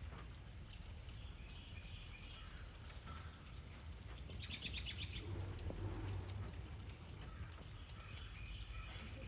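Songbirds chirping, with a quick run of rapid high chirps about halfway through, over a steady low background rumble.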